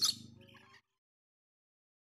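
Ornate lorikeet screeching calls breaking off sharply at the start, a few faint call fragments trailing for under a second, then dead silence.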